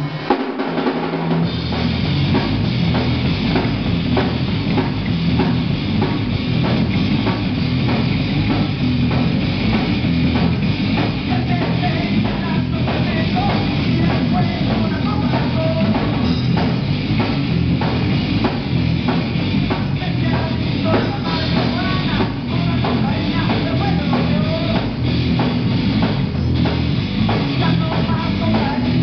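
Live rock band playing loud and steady: drum kit with bass drum and snare driving the beat under electric bass and electric guitar, with the drums coming in just at the start.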